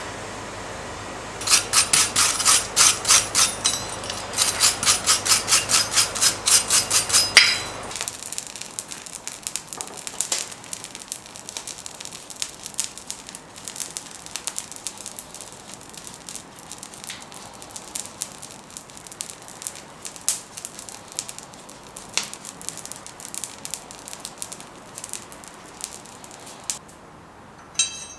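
Rapid ringing hammer blows on steel, about five a second, in two runs over roughly six seconds, over a steady low hum. After that the hum stops and there is quieter crackling and scattered pops from the coal forge fire as linseed oil is burned onto the hot forged steel.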